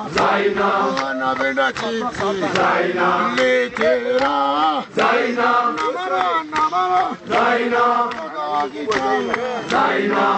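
A group of mountain porters singing together in a chanting song, with many voices in unison and sharp percussive beats through the singing.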